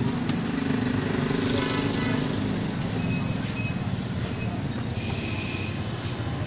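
Steady low rumble of street traffic, with no single sound standing out.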